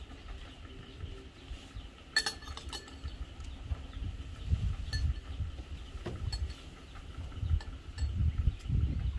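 Pots and dishes clinking a few times, a cluster of clinks about two seconds in, over a low rumble that comes and goes.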